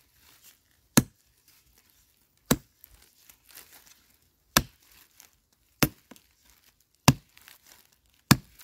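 A digging tool's blade chopping into dry, stony soil to dig out a wild yam tuber: six sharp strikes about every second and a half, each followed by a short patter of loose earth and clods falling.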